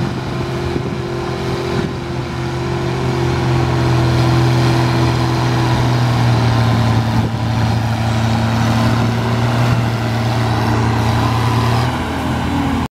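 Farm-stock diesel tractor engine running at full throttle under heavy load as it pulls a weight-transfer sled, a steady hard engine note. The pitch sags near the end as the engine lugs down.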